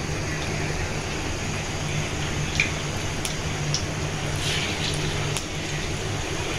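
Piyaju (lentil and onion fritters) sizzling as they deep-fry in hot oil, over a low steady hum. A few sharp pops and spatters come through, the busiest about four and a half seconds in as a second fritter goes into the oil.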